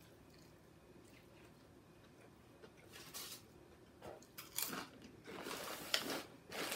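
Crisp crunching and chewing of a Kettle Brand potato chip, in several short bites starting about three seconds in, with a rustle of the chip bag near the end.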